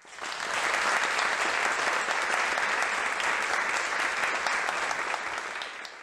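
Audience applauding: the clapping swells in within the first half second, holds steady and dies away near the end.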